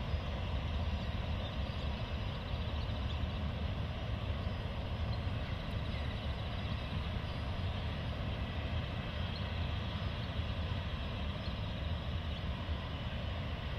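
Train of AK track cars behind GM-class diesel locomotives crossing a rail viaduct: a steady low rumble that does not change.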